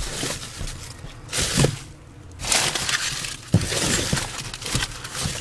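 Rustling and clattering handling noises: several bursts of scraping and shuffling with a few sharp clicks and clinks, as objects are moved about and rummaged through.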